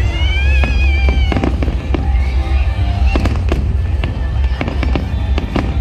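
Aerial fireworks display: shells bursting overhead in a rapid run of repeated bangs over a continuous deep rumble.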